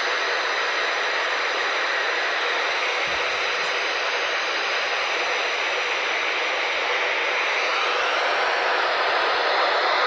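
Steady static hiss from a NOAA weather radio receiver's speaker, with no voice coming through: the live warning audio is not being transmitted.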